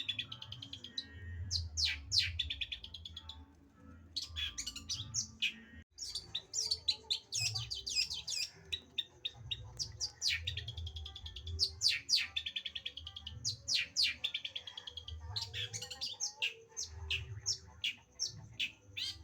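Long-tailed shrike singing a fast, chattering song of quick repeated notes and trills, with a short lull partway through.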